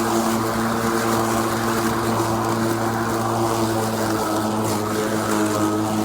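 Greenworks 80V cordless lawn mower running steadily, its electric motor and spinning blade giving an even hum with a clear pitch.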